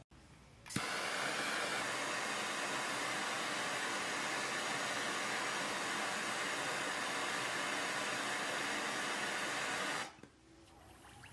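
Handheld gas torch burning with a steady hiss as it heats the W1 drill-rod checkering tool for hardening. The hiss starts abruptly about a second in and cuts off near the end when the flame is shut off.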